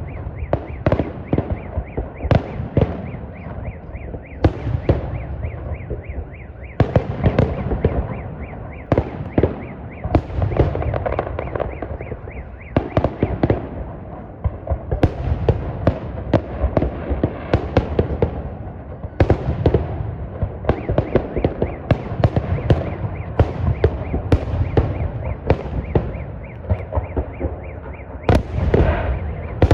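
Fireworks display: many sharp bangs and pops in rapid succession over a continuous booming rumble.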